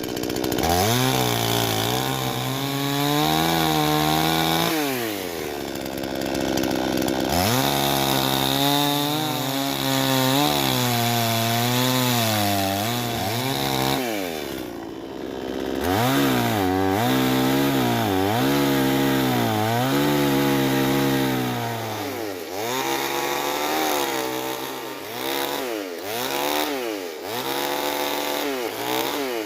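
Husqvarna two-stroke chainsaw cutting wood, its engine revving up, holding at full speed for a few seconds and dropping back again and again. Over the last several seconds the revs rise and fall in shorter, quicker blips.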